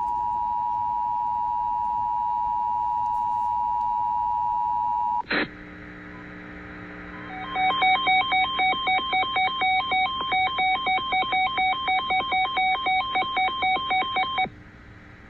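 Emergency Alert System two-tone attention signal: a steady dual tone for about five seconds, cut off with a click. A couple of seconds later an electronic alert tone warbles rapidly between two pitches, about three or four pulses a second, for about seven seconds over a low hum.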